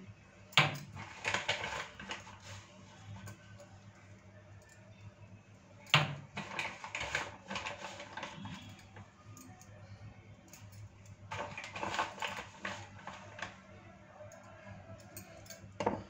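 A plastic measuring spoon tapping and scraping as flour is scooped and tipped into a bowl. There are three rounds of clicks and scrapes, each of the first two opening with a sharp knock.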